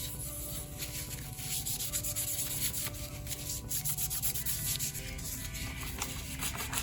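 Old thermal paste being wiped and rubbed off a laptop CPU and heatsink by hand: continuous scratchy scrubbing made of many quick strokes.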